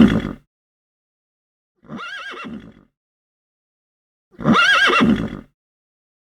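Horse whinnying: a whinny trailing off at the very start, a quieter one about two seconds in and a loud one about four and a half seconds in, each with a quavering, wavering pitch and dead silence between them.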